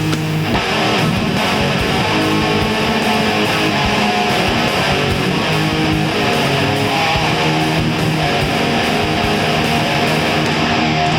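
Instrumental passage of a nu-metal song: strummed electric guitars with bass, loud and steady, no vocals.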